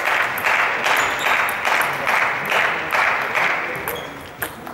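Spectators clapping after a point, the claps swelling in pulses about twice a second and dying away towards the end. There are a couple of sharp taps near the end.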